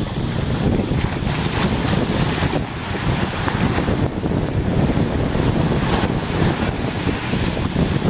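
Small sea waves breaking and washing up a sandy beach at the water's edge, a continuous surf rush with no letup, under a heavy low rumble of wind buffeting the microphone.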